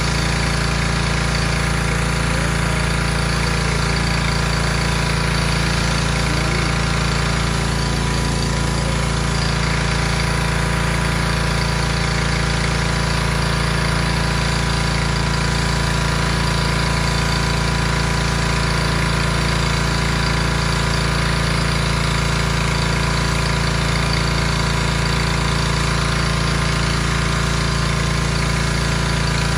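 Craftsman gas pressure washer running steadily, its engine note under the hiss of the high-pressure spray hitting wet concrete.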